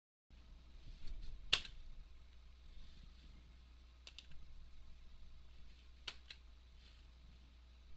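Computer mouse button clicks, several in quick pairs, the loudest about a second and a half in, over a low steady hum; the first moment is dead silence before the sound cuts in.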